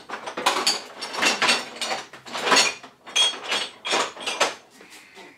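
Metal hand tools clinking and clattering as they are rummaged through in search of a punch: a string of short rattling bursts that die down near the end.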